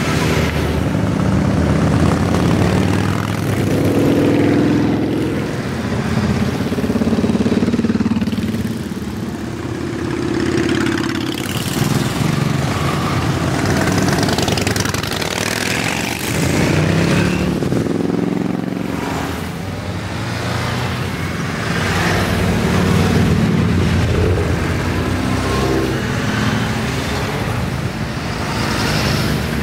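A column of motorcycles, cruisers and sport bikes, riding past one after another. Their engines swell and fade in waves as each group goes by, with the engine notes rising and falling in pitch.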